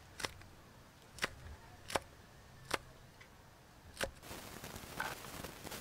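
Kitchen knife chopping long green chili peppers on a wooden board: five sharp chops, roughly one a second. In the last second and a half a steady hiss with small crackles comes in.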